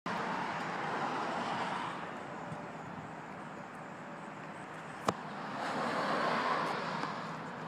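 Road traffic going by, a steady rush that swells twice as cars pass. There is a single sharp click about five seconds in.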